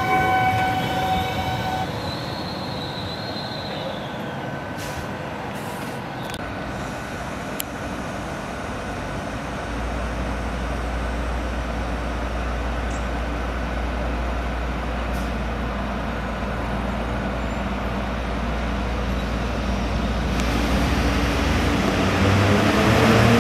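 Electric trains at a station. An electric train's whine falls away in the first couple of seconds, followed by a steady hum from trains standing at the platform. In the last few seconds an FS E656 electric locomotive gets under way and grows louder as it approaches, its motor whine rising.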